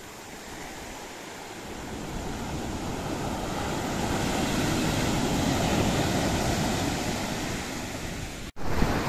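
Ocean surf breaking and washing up a sandy shore, a steady rush of water that swells in loudness over the first few seconds. It drops out abruptly for a moment near the end.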